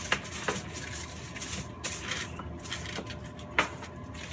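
Aluminum foil crinkling and rustling as it is pressed around a metal baking sheet, with a few sharp clicks, the loudest about three and a half seconds in.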